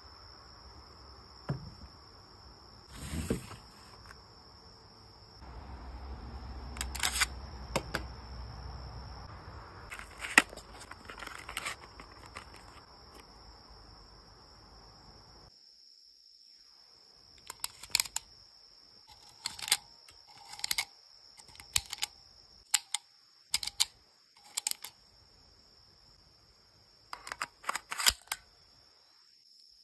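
A series of sharp metallic clicks and snaps from steel-cased 9×18mm Makarov cartridges being handled and a Polish PM-63 RAK submachine gun's magazine being handled. The clicks are scattered in the first half and come in a quick run in the second half, ending as the magazine is pushed into the pistol grip. A faint steady high whine sits underneath.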